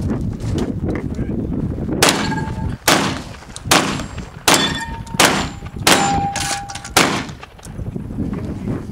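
A string of about seven gunshots fired roughly a second apart from a long gun, with steel targets ringing briefly after several of the hits.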